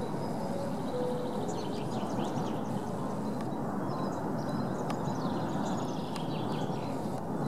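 Small birds chirping and calling over a steady low rushing background. A few soft held musical notes fade out in the first second or so.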